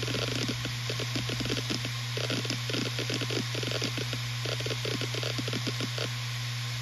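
Western Digital RE 4 TB (WD4000FYYZ) 7200 RPM hard drive running: a steady spindle hum with rapid, irregular ticking of the heads seeking, picked up by a phone resting on the drive.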